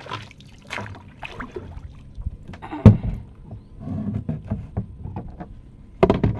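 White plastic bucket scooped through the river water with splashing and sloshing, then set down hard on the boat's floor with a loud hollow thud about three seconds in. Smaller knocks and handling clatter follow, with a louder clatter near the end as the bucket's lid goes on.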